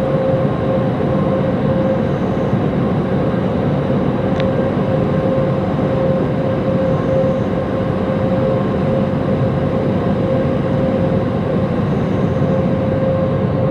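Automatic car wash machinery running steadily: a constant hum over an even rush of noise, with a brief high click about four seconds in.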